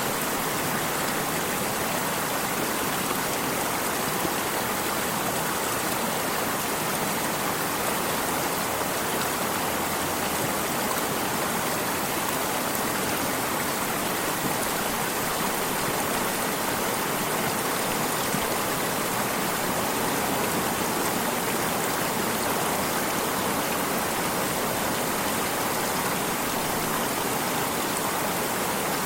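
Running water of a stream, a steady even rush with no changes.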